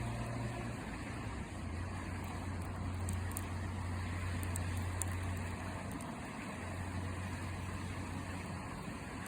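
A steady low hum and rumble, with a few faint crackles from a wood campfire.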